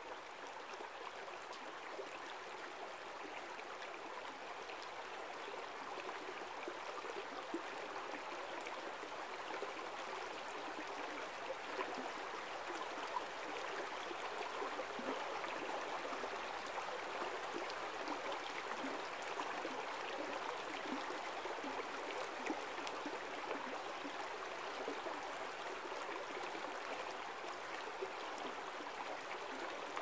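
Waiau River stream flowing steadily, an even rushing of water that grows a little louder over the first several seconds and then holds.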